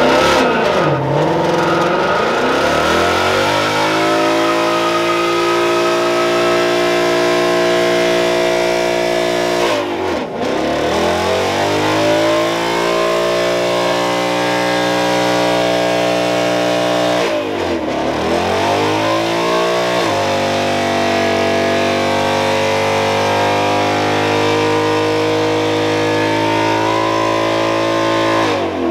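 Ford Mustang doing a burnout: its engine revs up and holds high for several seconds at a time, with the rear tyres spinning. The revs drop away sharply twice and climb straight back.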